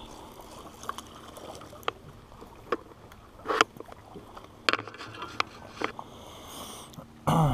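Scattered light clicks and knocks from handling a fishing rod, line and jig in a small boat, over faint water and wind noise, with a louder knock or bump near the end.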